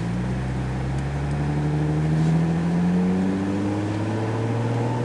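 Nissan 350Z's 3.5-litre V6 pulling away through a newly fitted Tomei dual exhaust, its note climbing gradually as the car accelerates, then holding steady near the end.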